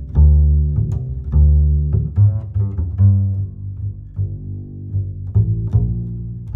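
Background music with deep pitched notes, each starting sharply and fading, one every half second to a second.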